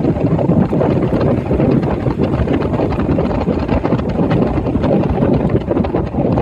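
Wind buffeting the microphone: a loud, rough, fluttering rumble that wavers constantly.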